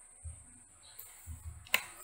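A few soft low thumps of handling, then one sharp click about three-quarters of the way through.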